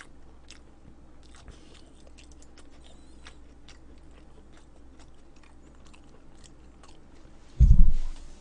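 A person chewing a mouthful of food close to the microphone, with many faint wet mouth clicks. About seven and a half seconds in comes one loud, low, dull thump.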